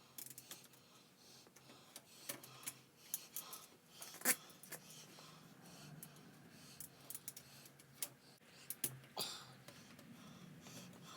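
Scattered light metallic clicks and clinks of a piston ring and a homemade ring expander being handled, with one sharper clink about four seconds in and another near the end.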